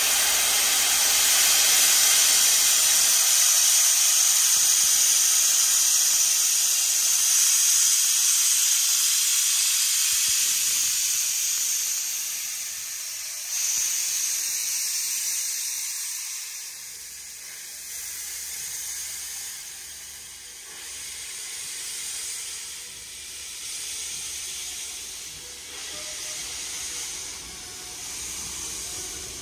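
NSWGR 35 class steam locomotive 3526 hissing loudly as steam escapes. About halfway through the hiss falls away to softer swells about every two seconds as the locomotive starts to pull away.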